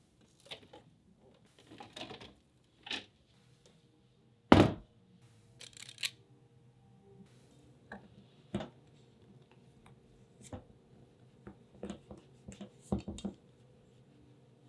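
Stainless steel mixing bowls handled with scattered clinks and knocks, the loudest a heavy thunk about four and a half seconds in. Later, a stainless cookie scoop scrapes through stiff cookie dough and knocks against the side of the stainless bowl.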